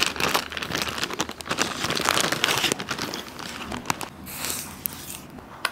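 Clear plastic bag crinkling and crackling as a stack of thin plastic visor tear-off films is handled and pulled out of it.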